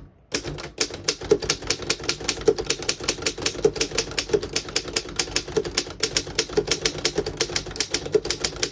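1911 Underwood No. 4 manual typewriter typing a sentence: a quick, even run of keystrokes, about seven a second, each typebar striking the platen with a sharp clack. The keys are working properly, none skipping or sticking.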